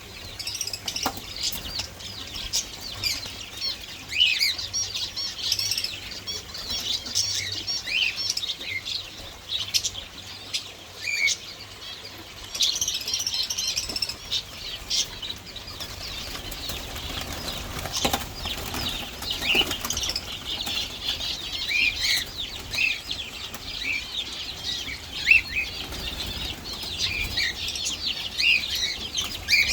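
A group of small birds chirping and twittering constantly in many short overlapping chirps, with bursts of wing fluttering.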